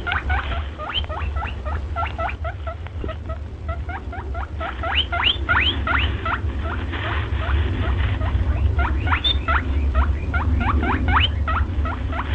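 Rapid, high-pitched animal chirps or squeaks, a few each second, each one sweeping sharply down in pitch. They run over a steady low rumble.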